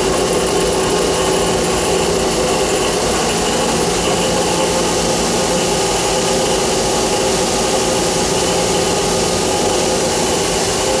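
Johnford SL650 heavy-duty CNC turning center running: a steady, loud machine hum with several held tones over a noisy wash.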